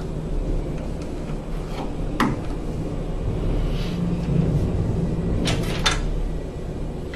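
A few sharp clicks and knocks from hands working on the furnace's junction box and switch inside its metal cabinet: one about two seconds in and a close pair near the end, over a steady low hum.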